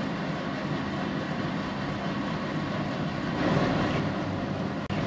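Vegetables and sauce simmering and sizzling in a frying pan on the hob, over a steady low hum. About three and a half seconds in, a spatula stirs the peppers through the sauce and the sound grows louder.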